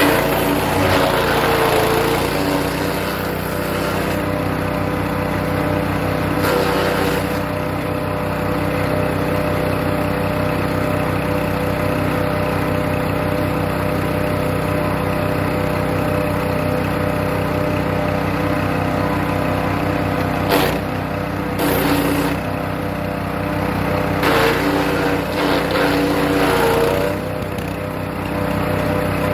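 Hecht 6208 wood chipper's small engine running steadily. Several louder, rougher spells of chipping come as birch branches are fed in, and the engine note dips under the load: at the start, about seven seconds in, and a few times in the last third.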